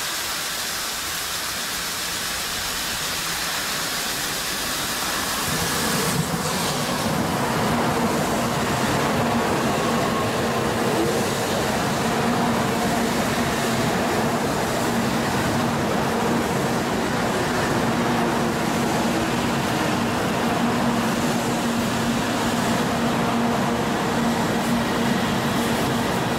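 Tokaido Shinkansen N700A-series train passing at reduced speed through heavy snow. At first there is an even hiss of the track snow-melting sprinklers. About six seconds in, the train reaches the microphone and a steady running rumble with a low hum sets in as the cars go by.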